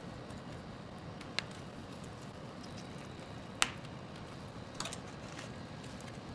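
A few sharp clicks and snaps as a pigeon's pre-cut breastplate is worked free during dissection, the loudest a little past halfway, with a short cluster soon after, over a steady low room hum.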